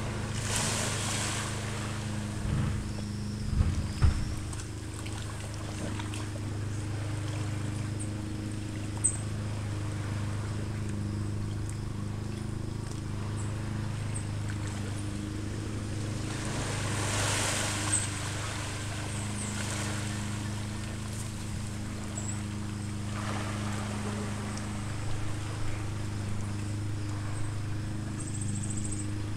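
Steady low hum of an idling boat engine. Small waves wash in a few times, near the start, about seventeen seconds in and about twenty-three seconds in. A couple of knocks come about three to four seconds in.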